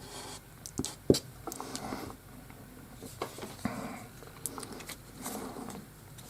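Scattered light knocks and clicks of wooden parts and tools being handled, with a sharper knock about a second in and a short rustling stretch around the middle.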